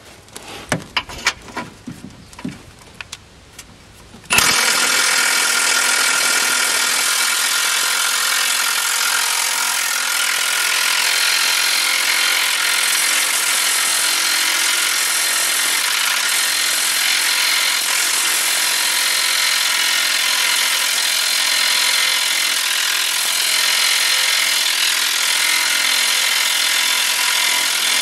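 A few light knocks and clicks, then a power tool starts abruptly about four seconds in and runs steadily and loudly without a break.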